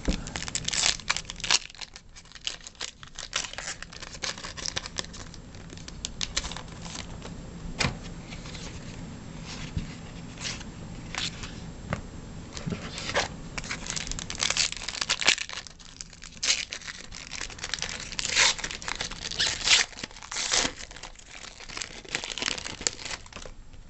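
Trading-card pack wrapper being torn open and crinkled, with irregular crackles and rustling as the cards inside are handled.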